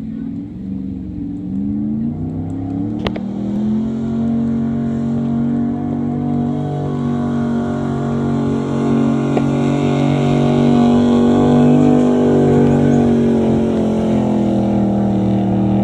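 Nissan Titan pickup's engine under full load pulling a truck-pull sled: it revs up over the first few seconds, then holds steady at high revs, getting a little louder, and cuts off abruptly at the end of the pull. A single sharp click sounds about three seconds in.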